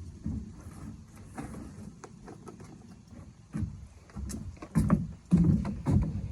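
Scattered thumps and light knocks of things being moved about and handled, with a cluster of louder thumps in the last two seconds.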